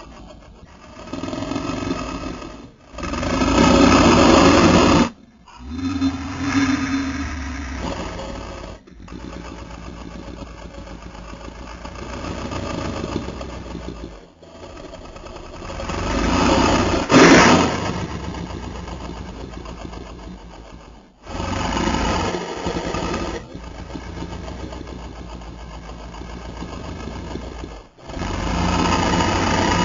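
Custom creature sound effects for the Vastatosaurus rex, a fictional giant theropod dinosaur: a run of separate growls and roars, each a few seconds long and cut off sharply before the next begins. The loudest come about four seconds in and again about seventeen seconds in.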